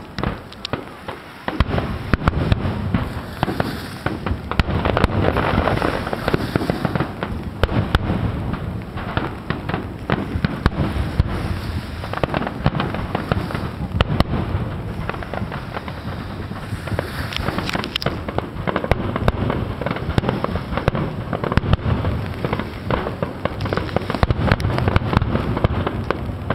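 Aerial fireworks exploding in a dense, continuous barrage: many overlapping bangs and crackling bursts. The barrage starts about a second and a half in.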